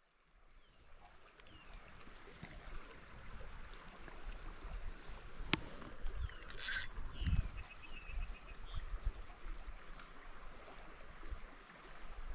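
Mountain creek water running faintly and steadily, fading in from silence at the start. Scattered short high chirps sound over it, with a quick run of evenly spaced high notes about two-thirds of the way through and a single sharp click near the middle.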